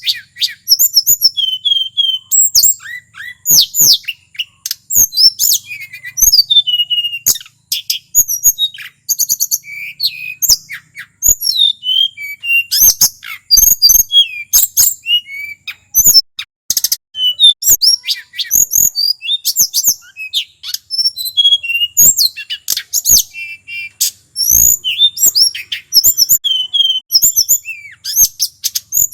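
Male tledekan gunung singing a fast, varied song of whistled notes, slurred glides and chirps with almost no pauses. Sharp clicks are scattered through it.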